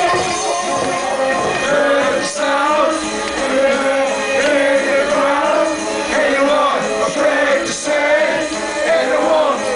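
Loud live hardcore music over a festival sound system: a sustained melodic passage of pitched lead lines and sung-like tones, with little heavy bass.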